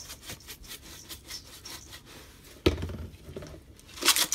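Spice shaker being shaken over raw chicken thighs in a bowl: quick, light rattling strokes, one knock about two and a half seconds in, then a burst of faster, louder shaking near the end.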